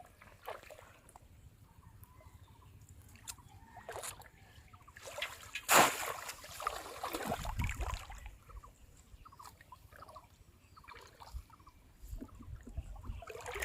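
Splashing and sloshing in shallow rice-field water, with one loud splash about six seconds in followed by a couple of seconds of sloshing, and small splashes and trickles before and after.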